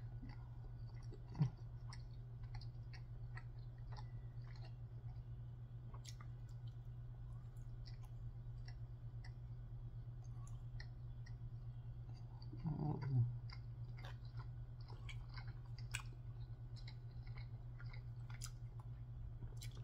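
Close-miked chewing and mouth sounds of a person eating chicken, with many small scattered clicks, over a steady low hum. A brief vocal sound, like a short murmur, comes about two-thirds of the way through.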